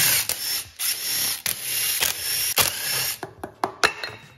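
Makita cordless impact driver rattling in several bursts as it undoes the screws of a Yamaha SR500 engine's crankcase, followed near the end by a few sharp metallic clicks and knocks.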